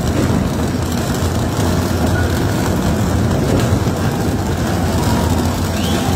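Deep, steady grinding rumble of a tunnel boring machine's cutterhead working through the rock wall of the station shaft at breakthrough.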